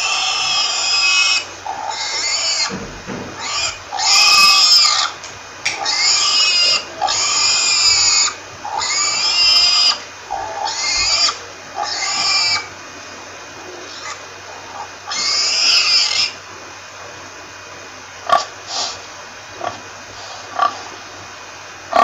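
Pigs squealing: a run of about ten loud, high squeals, each up to a second and a half long, then a few short calls near the end.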